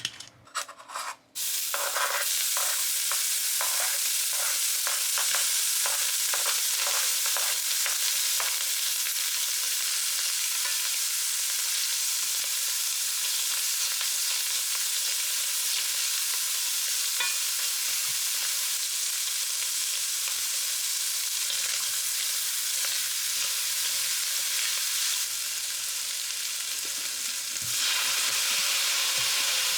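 Food sizzling loudly in a hot frying pan, starting suddenly about a second in, as ingredients for bacon fried rice go into the pan. For the first several seconds a spatula stirs and scrapes at about two strokes a second, then the sizzle runs on steadily.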